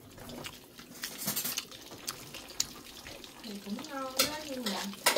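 Kitchen utensils and dishes clinking and scraping, with several sharp clicks scattered through. A voice is heard briefly about three and a half seconds in.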